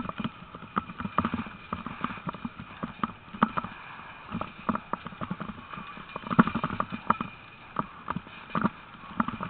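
A team of harnessed sled dogs running on a rough, dry grass trail, with irregular knocks and rattles several times a second as they pull along.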